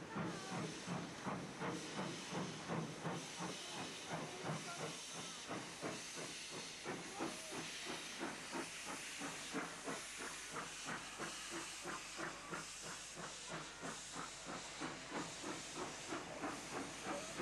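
Steam locomotive running slowly past, its exhaust beating in an even rhythm of about two to three chuffs a second over a steady hiss of steam.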